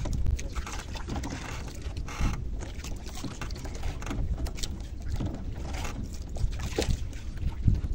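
Wind rumbling on the microphone and water moving against a small fishing boat at sea, with a few short knocks scattered through.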